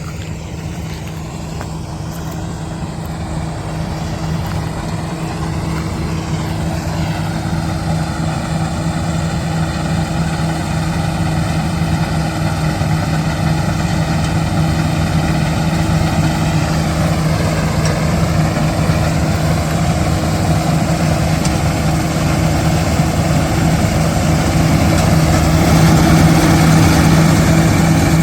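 Kartar combine harvester's diesel engine running steadily, growing gradually louder as it draws closer.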